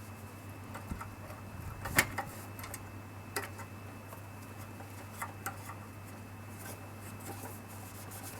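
Light clicks and knocks of parts and tools being handled during engine work, the loudest a sharp click about two seconds in, over a steady low hum.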